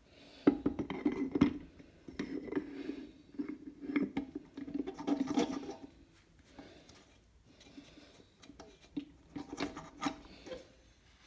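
TH400 automatic transmission front pump being lowered into the transmission case over guide pins: rubbing and scraping of metal on metal with light clicks, busiest in the first six seconds, then a few scattered clicks as it is lined up.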